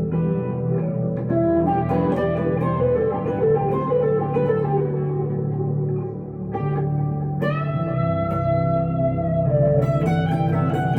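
Electric guitar, a 1962 Gibson Les Paul Custom through a Two Rock Emerald Pro amp with delay and reverb, playing a melodic lead line. A long held note comes in about seven and a half seconds in.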